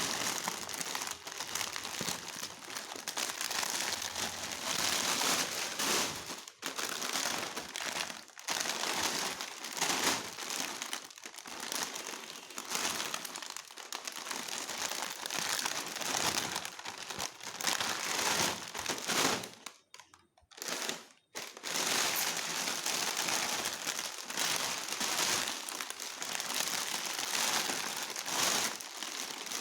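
Plastic snack packets crinkling as they are handled, a continuous rustling crackle broken once by a brief silence about twenty seconds in.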